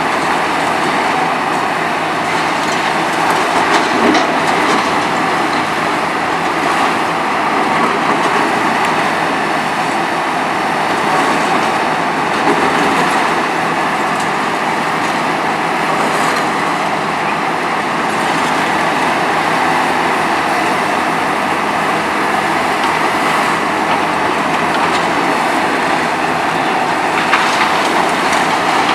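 Hitachi ZX 300LC-6 demolition excavator working, its engine and hydraulics making a loud, steady, continuous noise, with a few sharp knocks.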